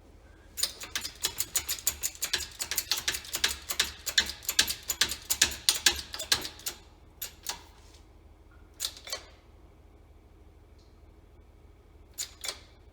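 A rapid run of sharp metallic clicks, about seven a second, for some six seconds, then a few pairs of clicks. These come from a shop press being worked to push a tractor water pump's shaft and bearing out of its housing.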